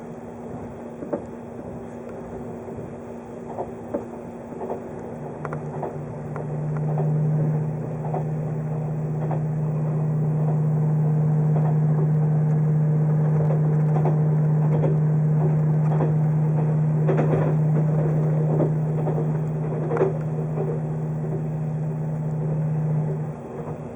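583 series electric train running, heard from inside a passenger car: a steady rumble and hum with scattered clicks. A strong low steady hum comes in about five seconds in as the sound grows louder, and cuts off about a second before the end.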